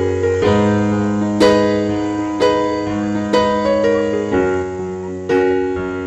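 Background music: piano or electric piano playing chords struck about once a second, each fading before the next, over a held bass note.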